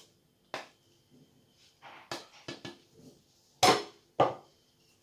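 Fluted metal pastry ring knocking and clinking against the work surface as puff pastry is cut: a few light knocks, then two loud knocks about half a second apart near the end.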